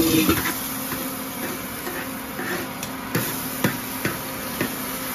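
Metal spatula knocking and scraping against a large wok as beef and chillies are stir-fried, irregular clanks about once or twice a second over a steady sizzle.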